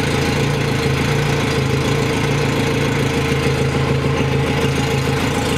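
Yamaha 90 HP four-stroke outboard engine idling steadily on a garden-hose water supply, with an even, regular pulse to its running.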